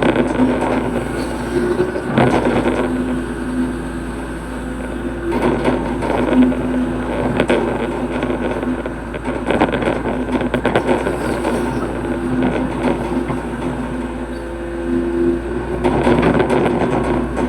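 Hitachi hydraulic excavator's diesel engine running as it digs a ditch, its pitch rising and falling as the hydraulics take load.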